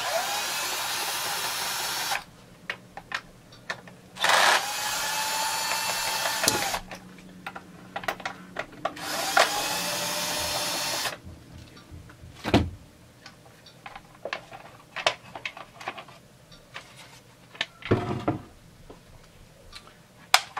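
Power drill-driver spinning out the top-cover screws of a Husqvarna 350 chainsaw in three bursts of about two seconds each, the motor whine dipping as it spins up and runs down. After that come scattered clicks and knocks of the screws and plastic cover being handled and lifted off.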